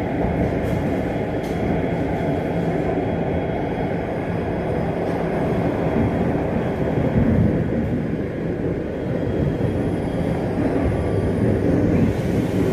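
BEML-built metro train running, heard from inside the car: a steady rumble of wheels on rail with a faint, constant high whine.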